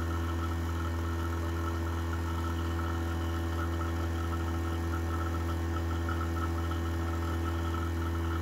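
Fieldpiece VPX7 10 CFM dual-stage vacuum pump running steadily with an even motor hum and a higher whine, pulling a deep vacuum on a reclaim tank as it nears 500 microns.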